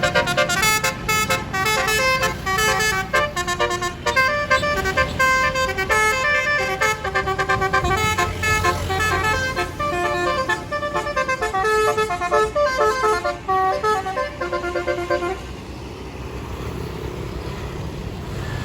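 Bus telolet horn, a Basuri multi-tone horn, playing a quick melody of short stepped notes under a steady low engine hum. The tune stops about fifteen seconds in, leaving only the engine and road noise.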